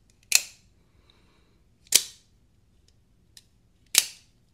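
Double-action out-the-front automatic knife (Axial Shift Gen3, aluminium handle) firing its blade out and back in: three sharp snaps about two seconds apart, each dying away quickly, with a faint click just before the third.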